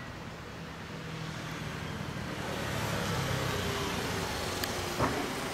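Motor vehicle noise: a low engine hum, then a broader rushing rise about two seconds in that holds steady, with two short knocks near the end.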